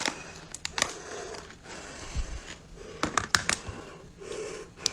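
A swimming crab's shell being pried open by hand: sharp cracks and clicks of shell with scraping, in a burst about a second in and a cluster past three seconds.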